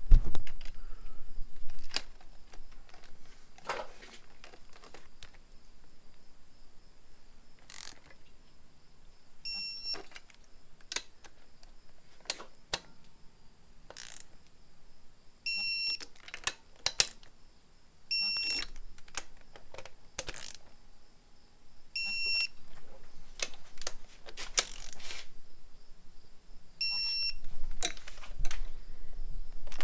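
Torque wrench ratcheting the intake manifold bolts down to 25 Nm, clicking as it turns. It gives five short electronic beeps, each the sign that a bolt has reached the set torque.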